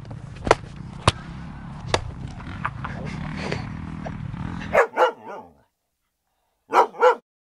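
A dog barking: three quick barks about five seconds in, then a pause and two more barks near the end. Before that, outdoor background noise with a few sharp clicks.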